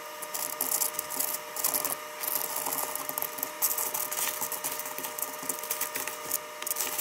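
Wood screws clattering into the bins of a plastic screw organizer: a dense run of small clicks and rattles, over a faint steady hum.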